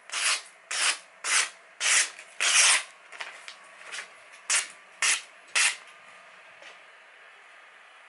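A sharpened kitchen knife slicing through a sheet of magazine paper in a paper-cut sharpness test. About eight short rasping cuts: five close together in the first three seconds, then three shorter ones a little past halfway.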